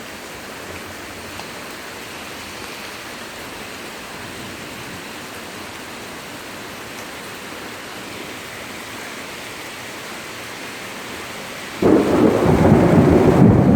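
Steady rain hissing during a thunderstorm, then about twelve seconds in a sudden loud thunderclap that goes on rumbling.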